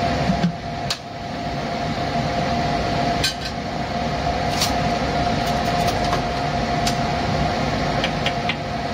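Kitchen range-hood exhaust fan running steadily, a constant rushing noise with a steady hum, with a few light clinks scattered through.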